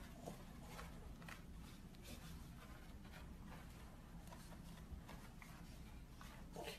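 Faint scratching and rustling of a small dog squirming and rolling on its back on a carpet rug, in short irregular scuffs over a low steady hum.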